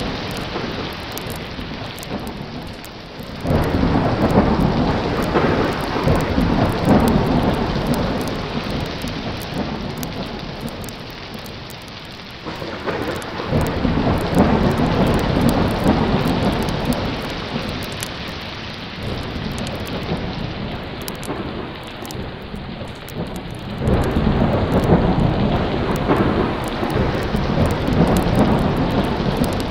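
Thunderstorm sound effect: heavy rain falling steadily, with three rolls of thunder about ten seconds apart, each starting suddenly and fading away over several seconds.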